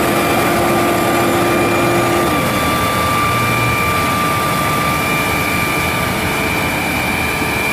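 National Crane boom truck running while its boom raises: steady engine noise with a constant high whine, and a lower hum that drops out after about two seconds.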